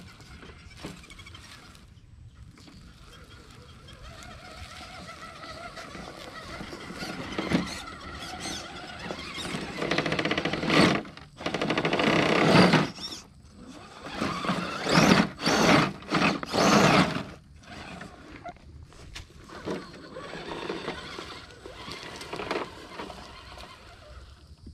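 An Element RC Enduro Trail Walker scale crawler's electric motor and gears whining as it crawls over dirt and rock. The whine rises in pitch, then comes a run of short, loud throttle bursts in the middle before it settles back to a lighter whine.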